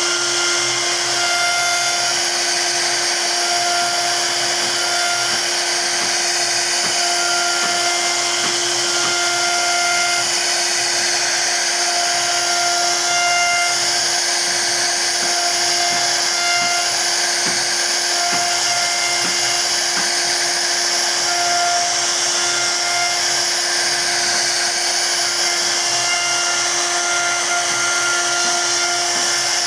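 HSD spindle of a CNC wood router running at high speed while its carving bit cuts a floral relief into solid wood. It gives a steady pitched whine with a constant hiss.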